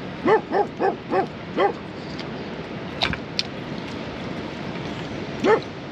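A dog barking: five quick barks in a row, then one more near the end, over steady background noise. Two sharp clicks sound about halfway through.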